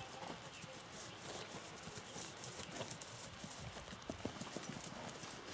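Faint, soft hoofbeats of a Missouri Fox Trotter horse being ridden at a gait over a grass lawn.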